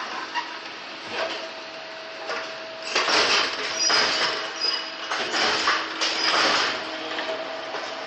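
Ladder tube expanding and crimping machine at work on aluminium ladder tubes: a steady machine hum with louder rushing, rattling working strokes, about three seconds in and again around five to six seconds in.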